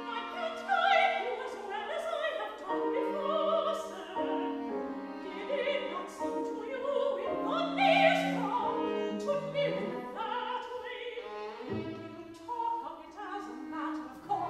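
Operatic singing accompanied by violin and cello, the voice moving through held notes with vibrato over the strings.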